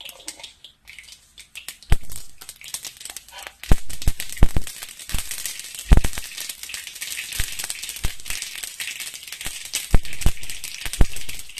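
Mustard seeds spluttering in hot coconut oil in a small frying pan for tempering: a sizzle that starts about two seconds in, with sharp irregular pops over it, several a second at times.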